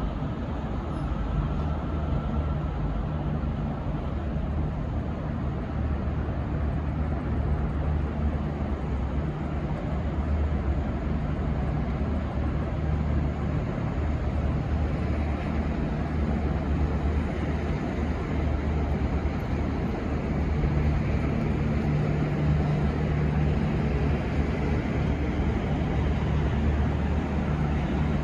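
Diesel train engines running steadily, a deep even drone that swells a little about twenty seconds in.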